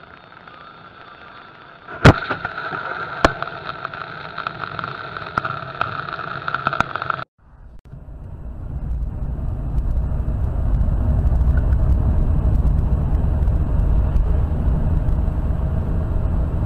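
Dashcam audio from a car on the road: a sudden loud bang about two seconds in, followed by smaller cracks and a steady hum. After a cut, the steady low tyre and engine rumble of a moving car, heard from inside the cabin, builds up and holds.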